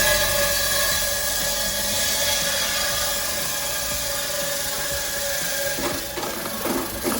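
Electric five-blade ice-block cutting machine running, a steady loud mechanical whine with a hissing edge, which starts abruptly; a few knocks follow near the end.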